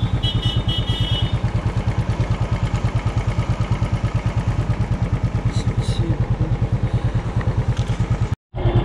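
Motorcycle engine idling with a fast, even pulse. The sound cuts out completely for a moment near the end.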